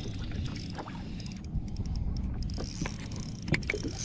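Steady low rumble of a fishing boat on the water, with scattered light clicks and knocks, more of them in the second half.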